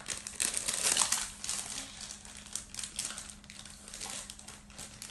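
Plastic packaging crinkling and crackling as it is handled and pulled open by hand, in irregular rustles that are busiest in the first second or so.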